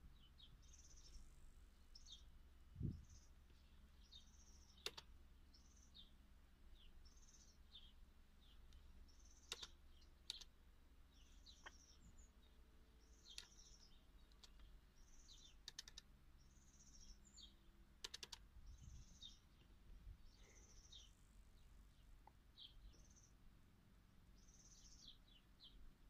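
Faint bird chirping, short high calls repeated about once a second, with a few sharp clicks of laptop keys and a single low thump about three seconds in.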